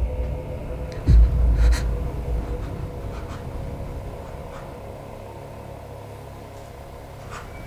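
Horror-film sound design: a deep booming hit about a second in over a low, steady drone that slowly fades.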